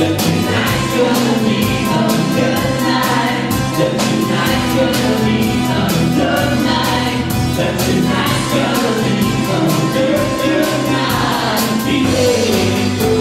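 Live rock cover band playing loudly: drums keep a steady beat under guitar while two singers sing together.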